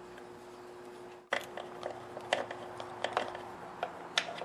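Quiet workshop hum, then after a sudden break a little over a second in, a scatter of small, sharp metal clicks and taps: a screwdriver and screws working loose the fuel pump on an outboard engine's powerhead, and the pump being handled.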